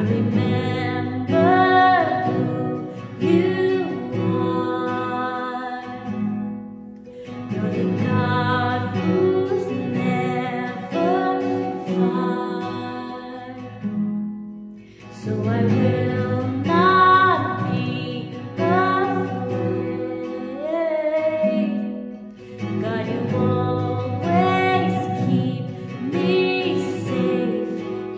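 A woman singing with strummed acoustic guitar accompaniment, in four phrases separated by short breath pauses.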